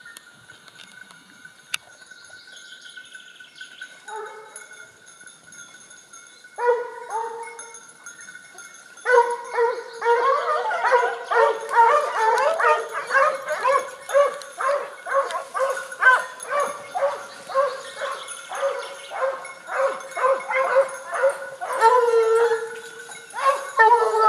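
A dog barking, first a few barks about seven seconds in, then a fast unbroken run of barks, about three a second, until the end.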